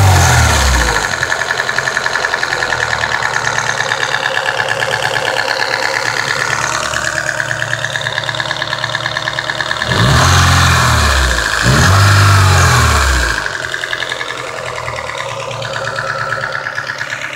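Nissan SR20DE four-cylinder engine idling, with a steady high-pitched noise over the idle, the strange noise whose cause the owner does not know. Its revs die down at the start, and it is blipped twice, about ten and twelve seconds in.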